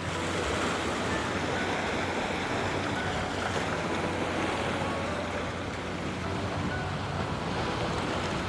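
Sea waves surging and washing against rocks, a steady rushing noise.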